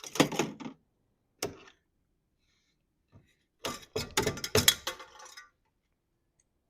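Metal clinking and knocking from tools and hardware being handled while an old garage door opener is taken down: a short clatter at the start, a single knock about a second and a half in, and a longer run of clinks and knocks around four to five seconds in.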